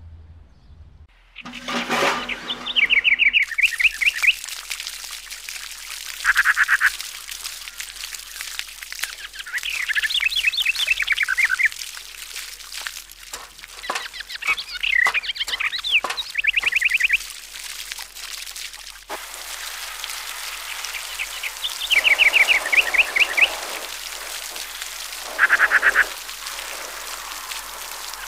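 Songbirds singing: quick trilled phrases of falling notes repeat every few seconds, with a couple of short, louder calls in between. A brief run of clicks comes about halfway through.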